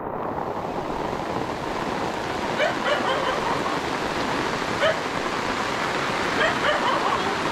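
Steady heavy rain, with a dog giving a few short barks.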